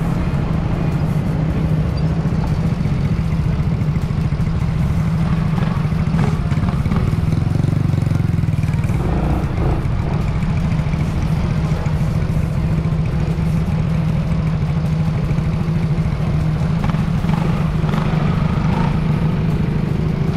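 Motor scooter engine running steadily at low speed, heard close up from the rider's own bike as a steady low hum.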